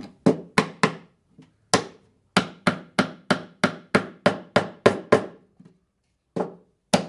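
Hammer tapping a mitred wooden picture frame held upright on the workbench, driving its corners tight. Sharp wooden knocks: a few at first, then a steady run of about three a second, and two single taps near the end.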